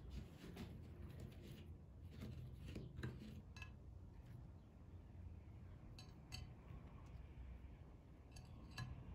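Faint scattered clicks and taps as sugar-coated lokum pieces and fingertips touch white ceramic dishes, against near-silent room tone.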